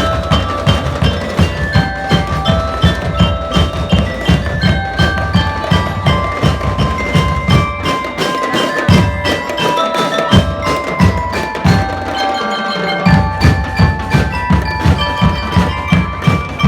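Drum and lyre band playing: bell lyres ring out a melody over a steady beat of marching drums. The low drums drop out briefly twice in the second half while the lyres carry on.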